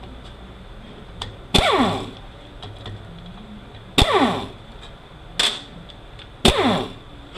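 Impact tool driving out the transmission case's T30 Torx bolts in four short bursts, each a sharp hit followed by a falling whine as the tool spins down.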